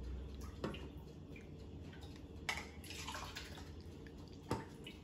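Tap water being poured from a plastic measuring cup into clear plastic cups, a faint splashing trickle, with three sharp knocks spread through it.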